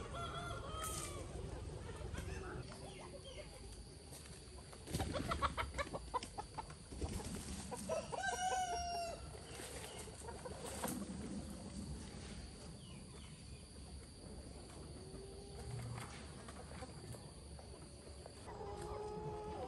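Chickens clucking and a rooster crowing, with the loudest, quick run of calls about five to seven seconds in.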